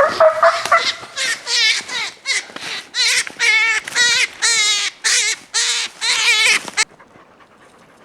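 Hunting hounds giving a run of short, high, quavering yelps and whines, excited at the hare, over rustling in the first seconds.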